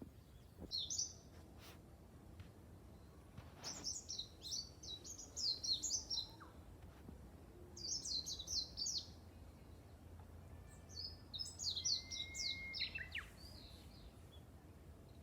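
A small songbird singing four quick phrases of rapid, high twittering notes, with a brief steady whistle inside the last phrase.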